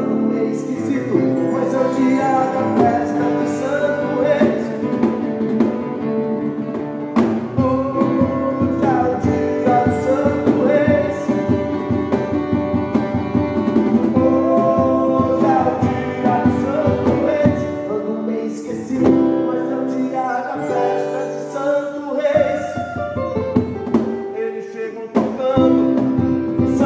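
Music: a pop rock song with guitar, with singing in places.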